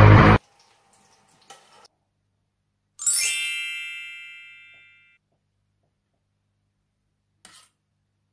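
Background music cuts off just after the start. About three seconds in, a single bright chime sound effect rings with a quick sparkly shimmer at the top and dies away over about two seconds.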